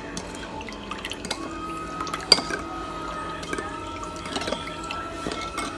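Metal spoon stirring juice and ground spices in a small ceramic bowl: liquid swishing with light clinks of the spoon against the bowl, one sharper clink a little over two seconds in. A faint steady high tone runs underneath from about a second and a half in.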